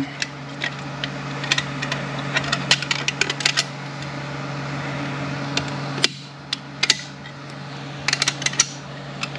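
Light metallic clicks and ticks as a large steel snap ring is pressed by hand, bit by bit, into its groove inside a 10R80 automatic transmission case. The clicks come in scattered clusters.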